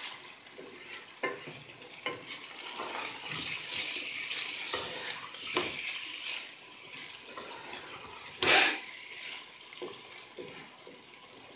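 A wooden spoon stirring a wet potato and radish-pod curry in a metal pot while it sautés, with a steady sizzle and scattered wet scrapes against the pot. One louder scrape comes about three-quarters of the way through.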